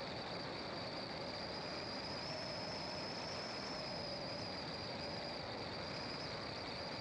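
A car driving, with steady road and engine noise, under a continuous high-pitched insect chorus of crickets or cicadas.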